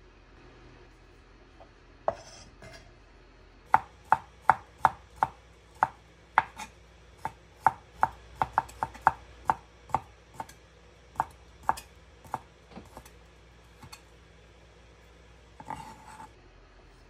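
Kitchen knife slicing wiener sausages into thin rounds on an end-grain wooden cutting board: a run of sharp knocks of the blade on the wood, about two to three a second, lasting some eight seconds. Near the end comes a short scrape as the slices are gathered up on the blade.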